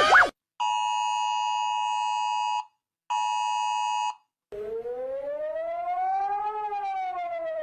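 Emergency Alert System-style attention tone, a steady two-note alarm sounding in two bursts, one of about two seconds and one of about a second. After a short silence comes a siren wail that slowly rises in pitch and then falls.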